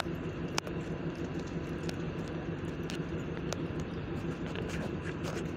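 Steady low hum of a DEMU train's diesel engine idling at the platform, with a few sharp clicks over it.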